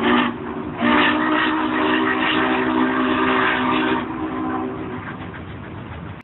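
Union Pacific 844, a 4-8-4 Northern steam locomotive, blowing its chime steam whistle over a steady rushing noise. The whistle chord breaks off just after the start, sounds again about a second in as a long blast, and fades out after about four seconds.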